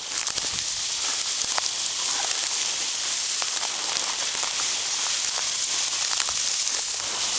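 Tall dry grass and weed stems rustling and crackling against legs and the camera as someone walks through them: a steady high hiss full of small snaps.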